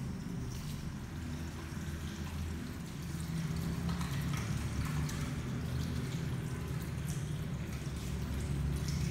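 Tap water running into a ceramic washbasin while hands are rubbed and rinsed under the stream, over a steady low hum.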